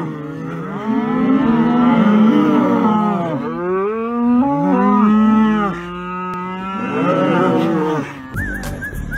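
A herd of cattle mooing: several long, overlapping moos one after another, some bending up and down in pitch. The mooing stops abruptly near the end.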